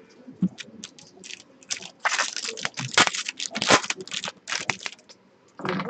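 A hockey card pack's foil wrapper being torn open and crumpled by hand: a quick run of crackling, rustling tears, thickest from about two to five seconds in, then one more brief crinkle near the end.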